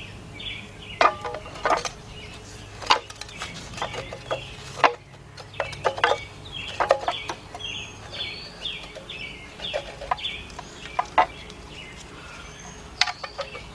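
Scattered sharp metal clinks and knocks as a steel flywheel is handled and lined up against an engine's crankshaft flange. A bird calls over it with short notes, repeated again and again.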